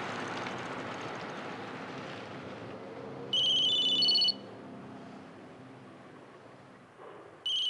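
Electronic telephone ringing: a burst of about a second of stepped high trilling tones a little over three seconds in, and a second burst starting near the end, over background noise that fades away.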